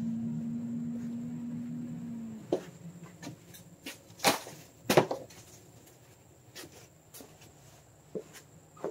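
A steady hum that cuts off a couple of seconds in, then scattered knocks and clanks of tools and parts being handled on a garage floor, the two loudest about four and five seconds in.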